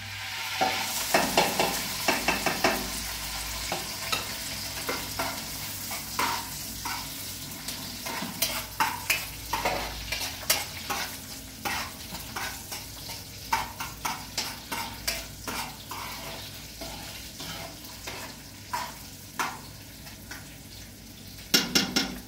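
Food frying in a pan with a steady sizzle while it is stirred, the utensil clicking and scraping irregularly against the pan, with a quick run of louder clicks near the end.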